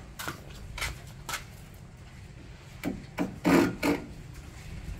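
Short rasping strokes of a hand tool working along the edge of a wooden tabletop board: three light strokes early, then four louder ones in quick succession about three seconds in.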